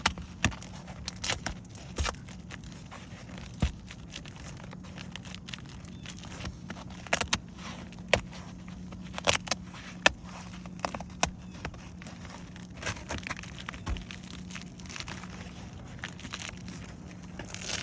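Roof shingles being worked loose and handled: irregular sharp clicks, scrapes and crackling as the creased piece is pried and torn out, over a steady low hum.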